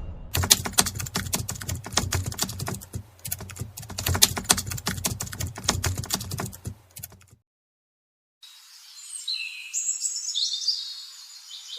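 A dense run of sharp clicks and crackles that cuts off abruptly; after a second of silence, birds chirping in high, sliding calls.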